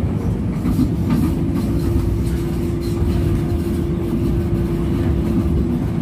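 LRT Line 1 light-rail train running along elevated track, heard from inside the car: a steady low rumble, with a steady hum over it from about a second in until near the end.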